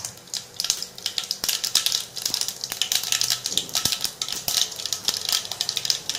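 Mustard seeds crackling and popping in hot oil in a small stainless steel pot, many irregular sharp pops a second: the seeds spluttering as the tempering (tadka) oil is hot enough.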